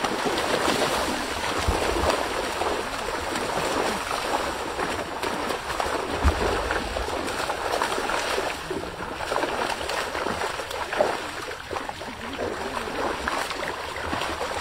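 Shallow water splashing and churning as trapped fish thrash at the surface: a continuous wash of many quick, overlapping splashes.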